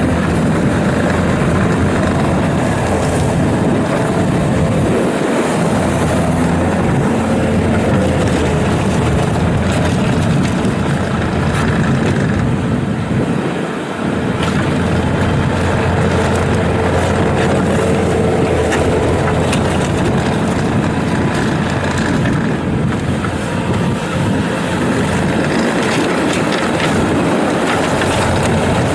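Bobcat T650 rubber-track skid steer loader running steadily, its diesel engine humming with scattered metallic clanks, briefly easing off about halfway through.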